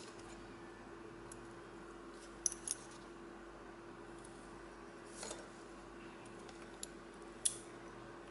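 Faint, sharp metallic clicks and ticks of a lock pick working in a brass pin-tumbler lock cylinder as it is picked and handled, a handful of separate clicks over a steady low hum.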